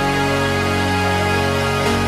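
Electronic dance music with sustained chords over a steady bass.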